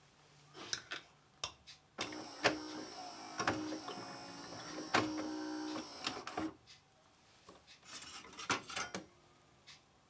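Saeco Syntia Focus espresso machine frothing milk through an auto-cappuccinatore: a steady buzzing, hissing run with sputtering pops that starts about two seconds in and stops after roughly four seconds. Near the end come a few sharp clinks as the glass is lifted away and set down.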